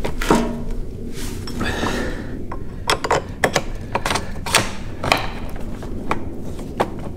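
Irregular sharp metal clicks and knocks as a scooter's front wheel is lined up in the fork and its axle is slid through the hub.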